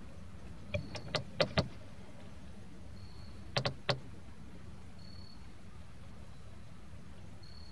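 Sharp hollow knocks on the canoe, such as a paddle striking the hull: a quick run of four about a second in, then three more around the middle.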